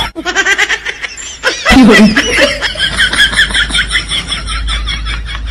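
Laughter: a fast, even run of high-pitched 'ha-ha' pulses, about five a second, through the second half.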